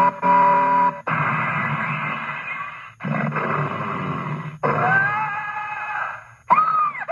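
Williams Addams Family pre-DCS pinball sound board playing its sound-test effects one after another through a speaker: a short train whistle, then a run of noisy effects including a bear growl and a bear kick, with short gaps between them. The freshly recapped board plays almost without crackle.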